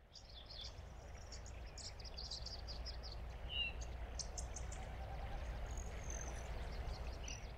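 Outdoor ambience: small birds chirping and twittering, thickest in the first couple of seconds, over a steady low rumble.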